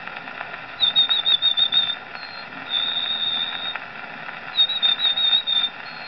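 A man whistling an imitation of the yellowhammer's song, "a little bit of bread and no cheese": a quick run of short high notes ending in one long held note, heard twice. It is played from an old record on a horn gramophone, with steady surface hiss underneath.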